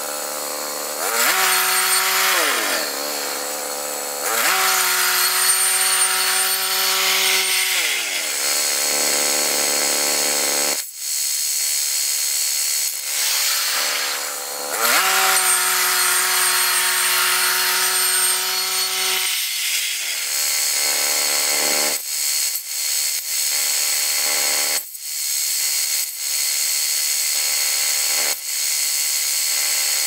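The small gas engine of a Woodland Mills HM122 portable band sawmill running under throttle, its pitch dropping and climbing back several times, over a steady cutting hiss. Several sharp knocks come in the last third.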